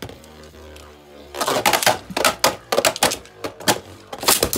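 Beyblade Burst spinning tops (Achilles and Valkyrie combos) whirring in a plastic stadium, a steady hum at first. From about a second and a half in come rapid, irregular clacks as the tops strike each other and the stadium wall.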